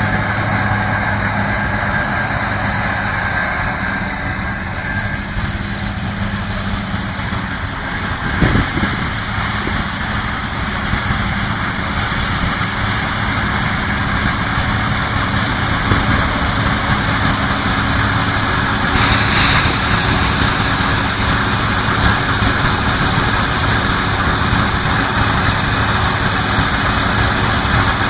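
Heavy farm machinery running steadily while harvesting corn, a continuous engine hum. There is a short knock about eight seconds in and a brief hiss near the middle.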